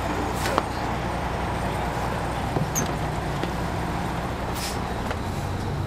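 Detroit Diesel Series 60 diesel engine of a 2002 MCI D4000 coach running steadily, heard from inside at the rear of the bus near the engine, with a low hum and a few light clicks and rattles.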